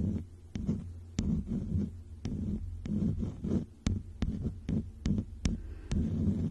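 Fluffy makeup brushes swept over the phone's microphone in ASMR brushing: a string of muffled low rubbing strokes, a few a second, with sharp little clicks among them.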